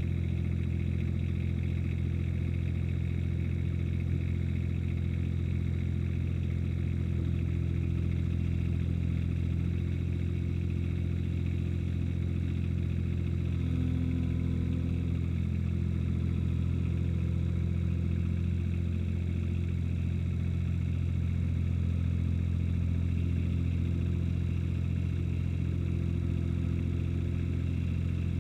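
Ransomes HR300 ride-on mower's engine running steadily.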